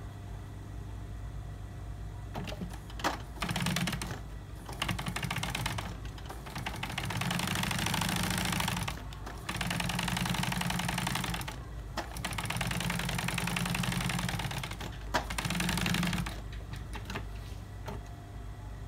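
Industrial lockstitch sewing machine with an edge guide stitching a 2 mm edge seam along a red handbag tongue piece, running in about six short bursts with brief stops between them, over a steady low hum.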